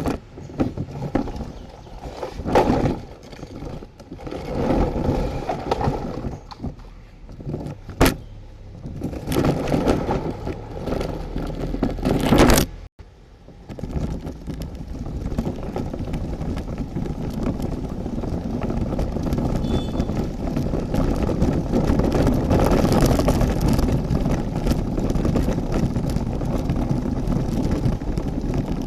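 Plastic toy vehicles being handled and rolled, clattering and scraping in irregular bursts with a few sharp clicks, then about halfway through a steady rolling rumble of toy wheels.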